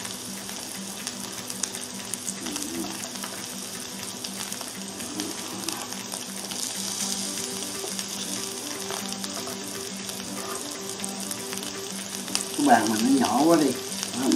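Smashed potatoes frying in a skillet on a portable gas stove: a steady sizzle with small crackles and spits. Near the end a louder, brief voice-like sound comes over the sizzle.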